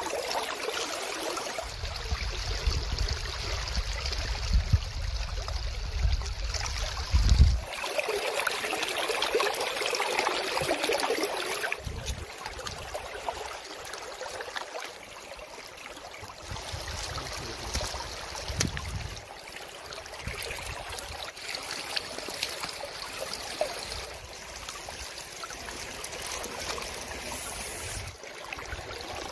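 Water trickling and splashing around a woven bamboo basket full of live fish at the water's surface. A low rumble sits under it for the first several seconds.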